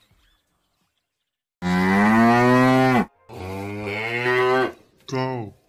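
Cow mooing three times after a second and a half of silence: two long moos, then a short one near the end.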